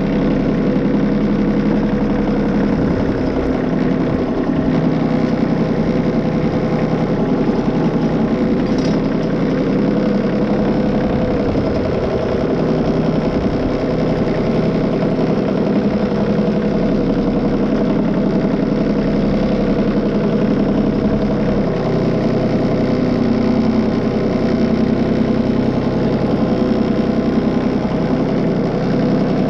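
Small New Holland 1725 compact tractor's diesel engine running steadily while it pulls a subsoiler through the ground to cut a trench.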